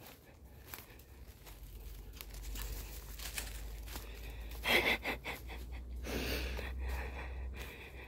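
A person's breathing while walking through forest undergrowth: two breathy exhales, one short about five seconds in and a longer one around six seconds, over faint rustling and a low rumble.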